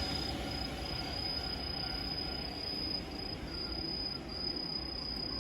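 Night insects, crickets or similar, keep up one continuous high trill broken by short gaps, over a low steady rumble.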